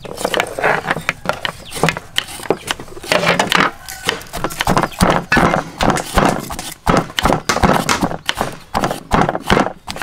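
Stone pestle pounding in a stone mortar, a steady run of repeated knocks as sliced lemongrass, garlic, shallots and turmeric are crushed into a spice paste.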